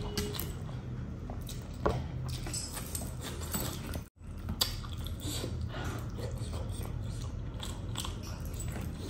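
Close-miked eating by hand: fingers squishing and mixing rice into fish curry on a plate, with wet chewing and lip-smacking as small, quick clicks over a steady low hum. The sound drops out briefly about four seconds in.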